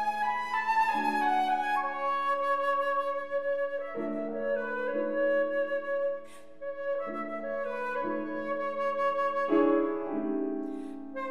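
Concert flute playing a sustained, singing melody over a grand piano's chords, with a new piano chord struck every few seconds.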